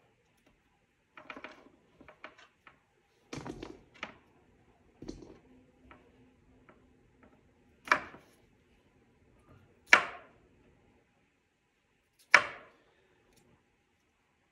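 Kitchen knife cutting potatoes on a wooden cutting board: irregular clusters of light taps, then three sharp knocks of the blade hitting the board about two seconds apart.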